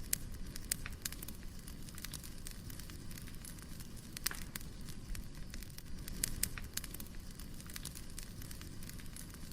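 Wood fire burning: a steady low rumble of flames with irregular sharp crackles and pops from the burning logs.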